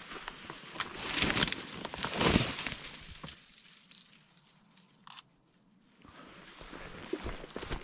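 Footsteps crunching through dry leaves and brush, loudest in the first two and a half seconds. They stop for about three seconds, then start again.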